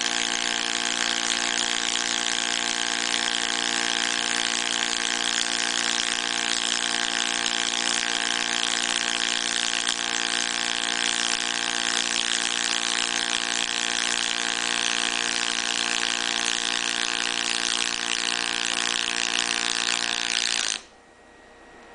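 Pulsed MIG welding arc from a MAHE sy-MIG 420 CWK, burning steadily with 1.2 mm metal-powder flux-cored wire (FLUXOFIL M8). It is a steady pulsing buzz over a crackling sizzle, and it cuts off suddenly near the end as the arc is broken.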